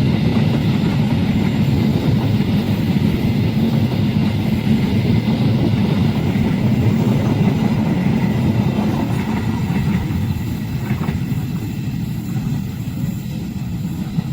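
Train passing at speed, its wagons rumbling steadily over the rails, then the rumble slowly fading over the last few seconds as it moves away.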